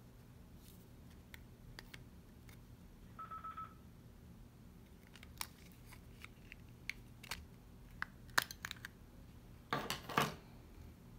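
Small sharp clicks and taps of a plastic smart key fob being handled, as its metal emergency key blade is slid back into the housing and clicks into place. A brief rustling scrape of hands on the fob comes near the end.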